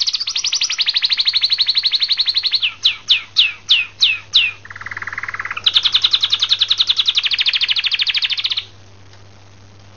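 Canary singing: long, very rapid high trills, then a run of about six quick falling whistled notes, a brief lower trill, and another long high trill that stops a little before the end.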